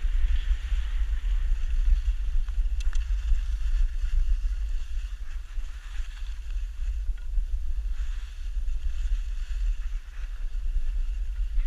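Wind buffeting the camera's microphone as it moves downhill on skis, rising and falling in strength, with a faint hiss of skis sliding over snow.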